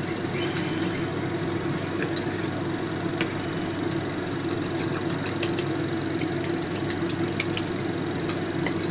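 A metal spoon stirring a thin sauce in a porcelain bowl, with scattered light clinks against the bowl about every second, over a steady low mechanical hum that is the loudest sound.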